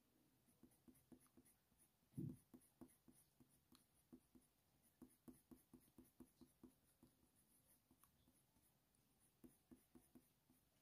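Faint, quick scratching strokes of a Faber-Castell Polychromos colour pencil on hot-press watercolour paper, several a second, as short fur lines are put down with firm pressure. A single soft low thump comes about two seconds in.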